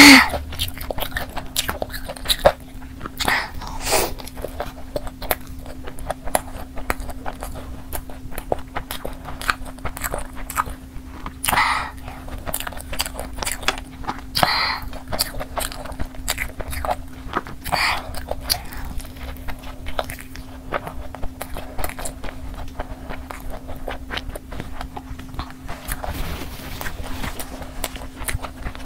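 Close-miked eating of a sauce-coated breaded chicken burger: repeated bites and wet chewing with crunchy crackles and mouth clicks. A steady low hum runs underneath.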